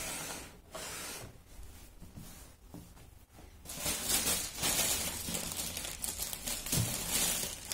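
Crinkling and rustling as the fibre-cotton stuffing is handled, growing fuller and brighter about four seconds in.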